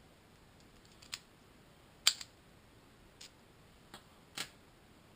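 Small sharp clicks and taps at irregular intervals, about six in all, the loudest about two seconds in, as an Abus titanium padlock and lock-picking tools are handled.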